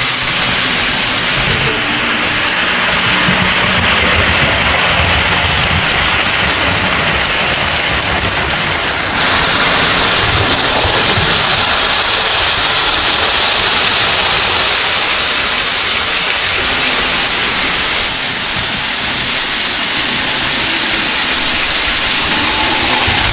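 O gauge three-rail model trains running on the layout: a steady rolling hiss and rumble of wheels on track with a low motor hum underneath. The hiss jumps louder suddenly about nine seconds in.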